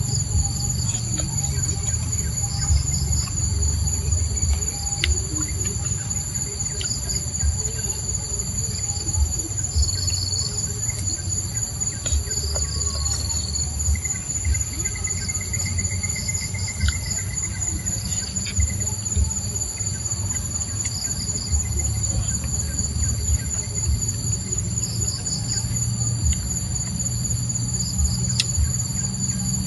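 A chorus of insects buzzing and trilling steadily in several high, shrill layers, one of them pulsing rapidly, while shorter trills come and go. Underneath is a low rumble with soft thumps.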